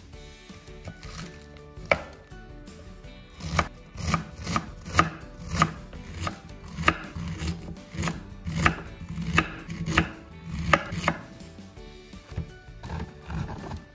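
Kitchen knife slicing red cabbage into shreds on a plastic cutting board: sharp knocks of the blade through the cabbage onto the board, about two a second, thinning out near the end.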